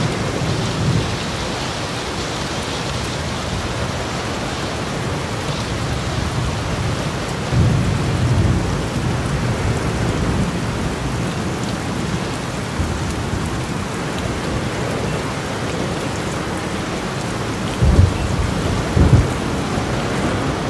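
Heavy, steady downpour in a violent thunderstorm. Louder low rumbles come about eight seconds in and twice near the end.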